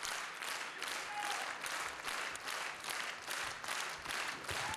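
Concert audience applauding, clapping together in a steady rhythm.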